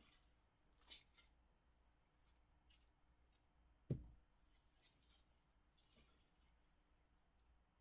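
Mostly near silence: faint swishes and light clicks of a household clothes iron being slid and pressed over a t-shirt on a table, with one sharp low thump just before four seconds in.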